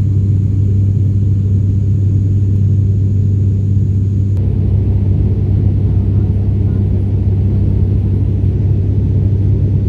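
An ATR 72-600's twin turboprop engines and six-blade propellers droning steadily, heard inside the passenger cabin as a loud, even low hum.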